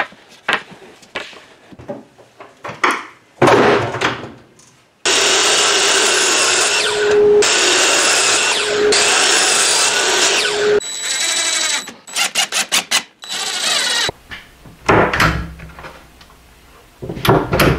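Scattered knocks and clatter of wood pieces come first. Then a power miter saw runs and cuts through wood for about six seconds, followed by a quick run of rapid mechanical strokes. Near the end come the low knocks of wooden cabinet doors being swung open and shut.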